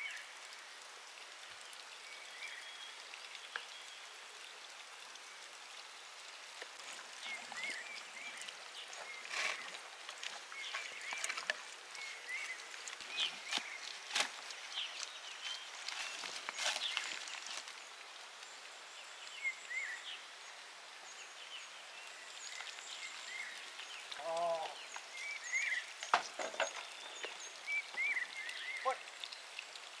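Rural outdoor ambience: a steady hiss with scattered short chirps, and a run of sharp clicks and knocks in the middle as a wooden ox yoke and its rope ties are handled. A brief pitched call sounds about two thirds of the way in.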